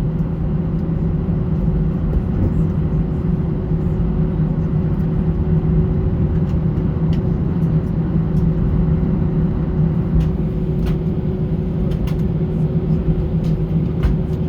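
Airbus A320 cabin noise on the ground with the engines running at low power: a steady rumble with a constant low hum and a fainter higher hum, and a few faint clicks.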